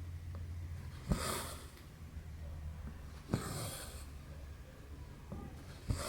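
Needle and floss working through cross stitch fabric: three times, a small click as the needle pokes through the canvas, then a short swish as the thread is drawn through, about every two seconds.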